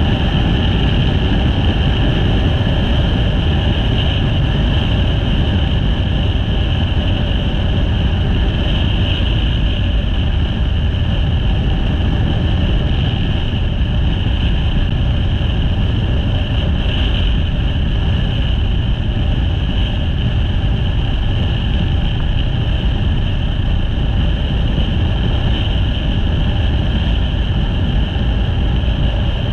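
Motorcycle cruising at road speed: steady wind rush on the camera microphone over the engine's drone.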